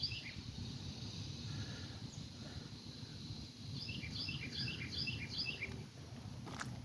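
A small bird singing a quick run of about six repeated high chirps about four seconds in, over a faint outdoor background hum. A sharp click near the end.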